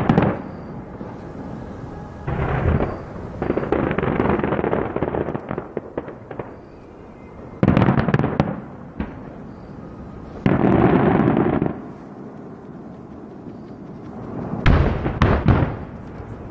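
Aerial firework shells bursting in loud volleys of booms and crackle, with a few seconds between volleys.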